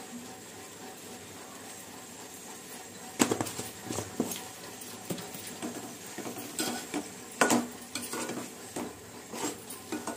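Steel spoon knocking and scraping against a stainless steel pot as fish pieces in a thick masala are stirred. The clinks start about three seconds in, with the sharpest knocks then and again about seven and a half seconds in.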